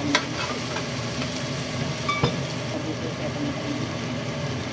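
Diced potato and carrot frying in a pan over a steady hum, with a spatula knocking against the pan twice, about two seconds apart.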